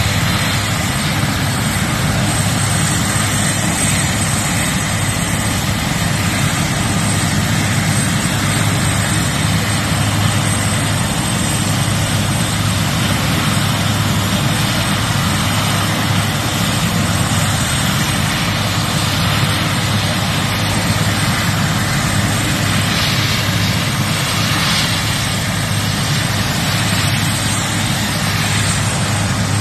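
Twin-turbine military helicopter, a Bulgarian Air Force AS532 Cougar, running on the ground after landing: loud, steady rotor and turbine noise with a thin high tone, unchanging throughout.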